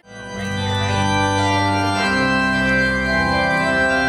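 Processional organ music: sustained chords that change about once a second.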